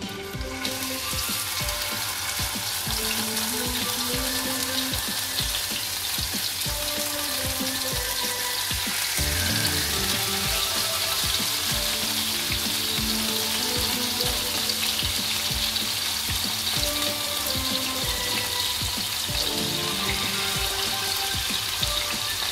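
Milk-marinated pork belly slices frying in hot oil in a frying pan: a dense crackling sizzle that starts as the first slice goes in and grows a little louder as more slices are added. Soft background music plays underneath.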